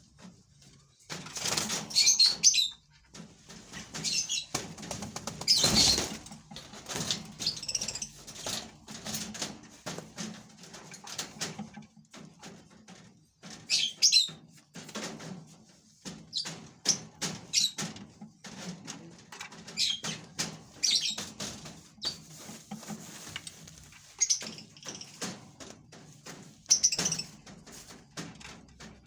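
Pet green parrots giving shrill, high squawking calls in bursts every few seconds, with wing flapping and scuffling between the calls.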